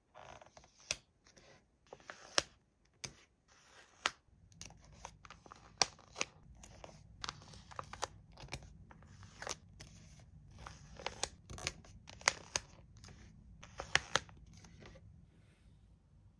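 Hands unpacking and handling toys and their packaging: a busy run of sharp clicks and short rustles. A faint low hum joins about four seconds in, and the handling stops shortly before the end.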